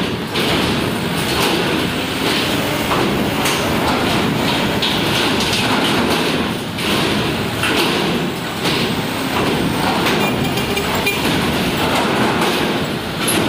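Heavy vehicles rolling onto a ferry's vehicle deck: a loud, steady mix of diesel engines and rumble, with a few metallic knocks from the loading ramp.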